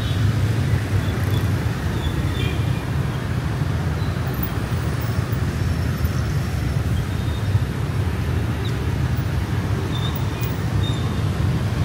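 Steady city street traffic: a continuous low rumble of passing engines and tyres, with no single vehicle standing out.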